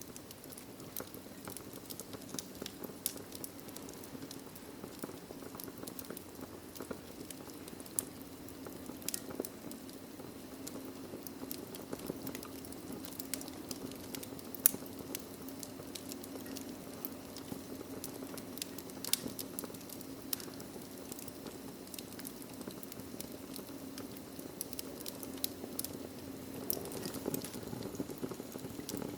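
Wood fire crackling in a fireplace: irregular sharp pops and snaps over a steady low rush of flame, one pop a little past halfway louder than the rest.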